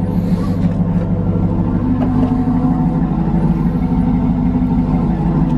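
A 2008 GMC Yukon Denali's 6.2-litre V8 idling, a steady low hum that stays even throughout.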